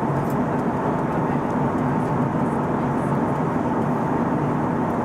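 Steady in-flight cabin noise of an Airbus A320neo with Pratt & Whitney PW1100G-JM engines: a constant rush of airflow and engine drone with a faint steady whine.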